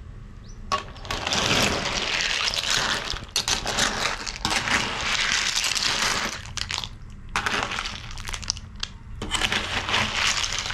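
A metal ladle stirring a wok full of siput sedut sea snails in thick gravy, the shells clattering and scraping against each other and the wok. It comes in four long bouts, starting about a second in.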